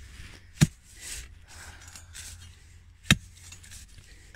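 Long metal digging tool striking down into hard soil beside a thick root, two sharp clinking impacts about two and a half seconds apart, with faint scraping of earth between them.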